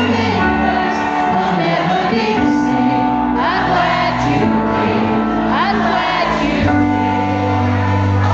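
Live pop music played loud through a concert PA: sustained keyboard-like chords over a bass line, with a man singing lead into a handheld microphone.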